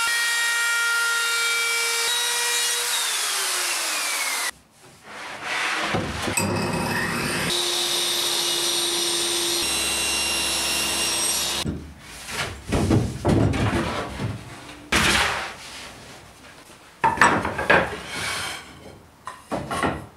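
A hand-held plunge router runs at full speed with a steady high whine, then falls in pitch as it spins down about three to four seconds in. A table saw then runs under load for about six seconds as a wide board is cut. The rest is irregular knocks and scrapes of wooden slats being handled and laid together on the bench.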